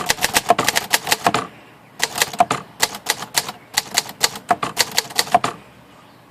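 Hermes 3000 manual typewriter being typed on: two quick runs of typebar strikes, several a second, with a short pause between them about one and a half seconds in. The clicks stop about a second before the end.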